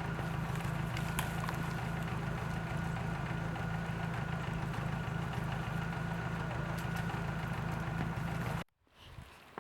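Vehicle engine running steadily with a constant low drone, cutting off abruptly near the end.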